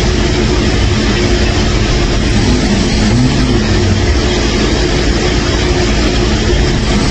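A person snoring loudly: a low rumbling rasp that swells every few seconds over a constant noisy roar.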